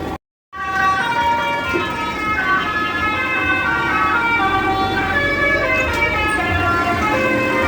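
Bus telolet horn: a multi-tone bus horn playing a tune as a series of held notes that step up and down in pitch.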